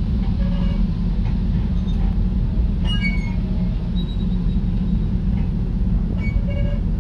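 Amtrak passenger train cars rolling on the rails with a steady low rumble, and short wheel squeals about three seconds in and again near the end.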